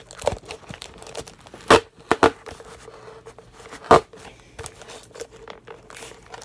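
Duct tape being pulled off the roll and wrapped around plastic bottles, with crinkling of the tape and plastic and three sharp loud rips, two close together about two seconds in and one near four seconds.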